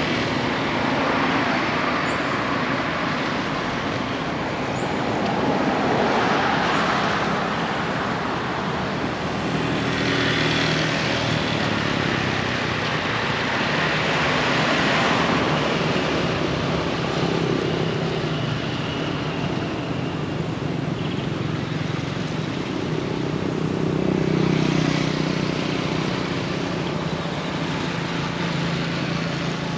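Road traffic passing, its noise rising and falling in waves as vehicles go by, with a low engine hum near the end.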